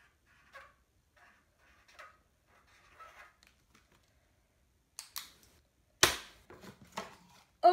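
Felt-tip marker faintly squeaking and scratching in short strokes on paper, then a couple of clicks about five seconds in, a sharp knock about six seconds in as the marker is set down on the glass tabletop, and a few lighter taps.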